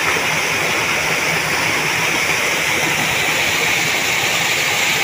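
Water rushing steadily over a small irrigation dam that is running high and overflowing. It makes a loud, unbroken rush.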